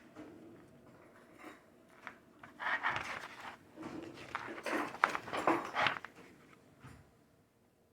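Paper rustling as the pages of a printed manual are handled and turned, in several bursts in the middle with a few sharp crinkles, then fading out near the end.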